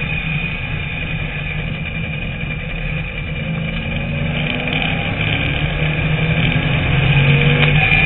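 TVR Tuscan Challenge race car's engine heard onboard at racing speed, with a steady high whine over it; the engine note eases briefly, then climbs and grows louder from about three seconds in as the car accelerates out of a corner.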